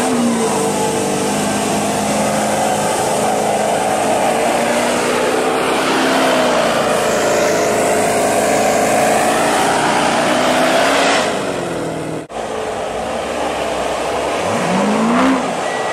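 Chrysler 300 sedan doing a burnout. The engine revs up sharply and is held at high revs while the rear tyres spin and screech against the pavement. The engine revs up again near the end.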